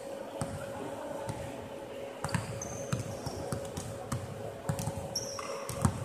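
Basketballs bouncing on a hardwood court: a string of sharp thuds at uneven spacing, the loudest near the end. Short high squeaks of basketball shoes on the floor come in between.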